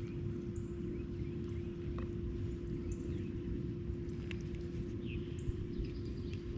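Small birds chirping in short, high calls every second or so, over a steady low hum and a low rumbling background noise, with a few faint clicks.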